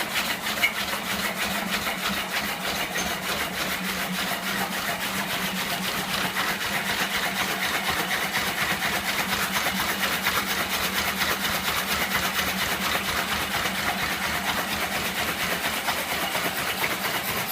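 Prototype magnet motor running on electronic timing: a fast, even mechanical rattle over a steady low hum.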